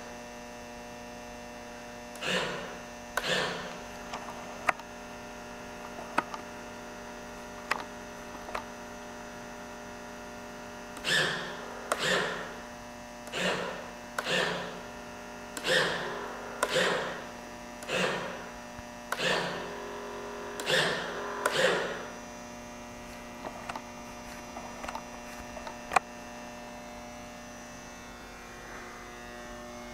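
Steady electrical hum from the radio-control Beaver floatplane model, with a series of short electric servo whines, about one a second in two runs, as its control surfaces are worked.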